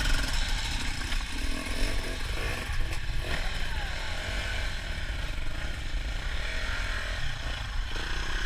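Off-road motorcycle engine running steadily while riding.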